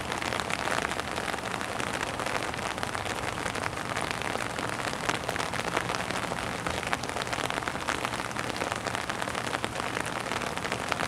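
Heavy rain pouring onto a wet, puddled surface: a steady hiss, dotted with many individual drops splashing.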